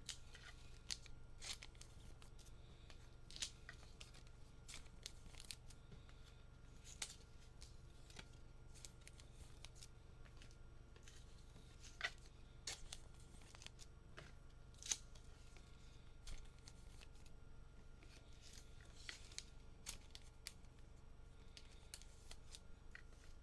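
Hands handling trading cards and their packaging: faint scattered clicks, crinkles and rustles, with a few sharper snaps around the middle.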